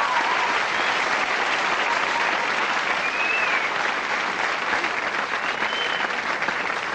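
Studio audience applauding steadily, easing off a little toward the end.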